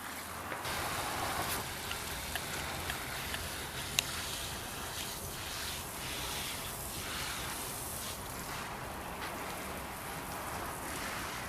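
Water spraying steadily onto garden plants and soil, a rain-like patter, with a few faint ticks and one sharp click about four seconds in.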